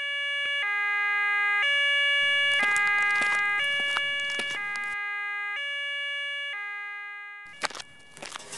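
Emergency vehicle's two-tone siren, a high and a low tone alternating about once a second. It grows louder, then fades away. A brief clatter follows near the end.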